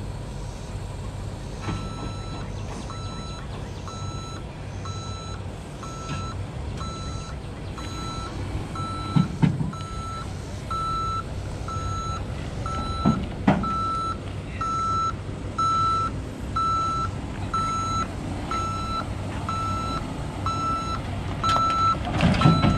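A truck's reversing alarm beeping about once a second, getting louder, over the low running of its diesel engine, with a few short knocks partway through.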